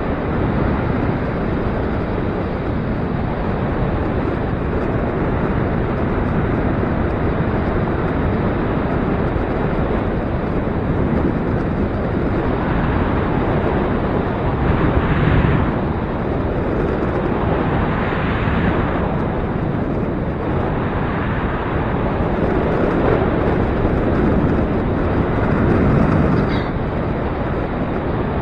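Gusty wind buffeting the microphone: a steady rumbling rush that swells in stronger gusts several times.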